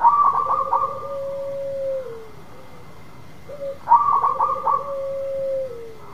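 Zebra dove (perkutut) singing its cooing song twice. Each phrase is a quick run of short staccato notes followed by one long, lower held coo that drops away at the end. The second phrase comes about three and a half seconds after the first.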